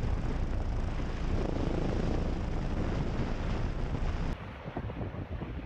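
Helicopter hovering close by: a steady rotor beat and engine noise. About four seconds in, the sound drops in level and the high hiss falls away.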